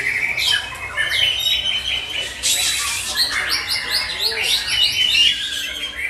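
Several caged contest songbirds singing at once, a dense tangle of rapid whistled and chattering phrases overlapping one another.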